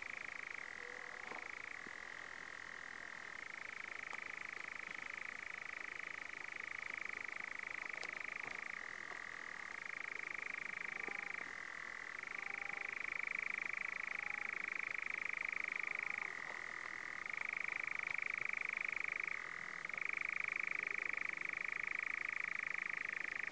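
European nightjar churring: one unbroken, dry, rattling trill that switches between a lower and a slightly higher pitch every few seconds.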